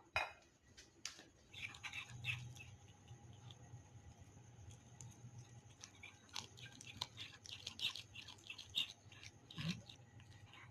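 A cat eating, with faint, irregular crunching and clicking as it chews its food.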